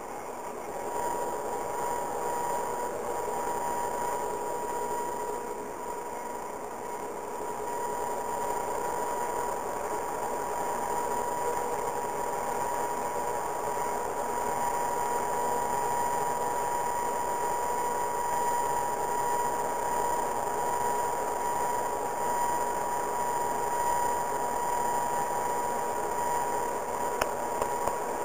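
BOMAG BW 213 DH padfoot roller's diesel engine and drive running steadily, heard from inside the cab as the roller drives over sand fill during compaction, with a steady high whine over the engine noise.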